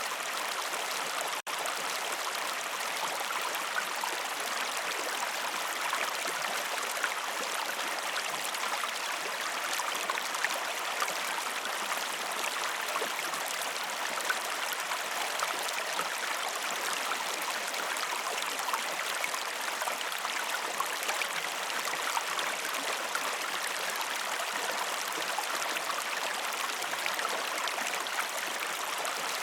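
Steady rushing and gurgling of a flowing stream, with a momentary break about a second and a half in.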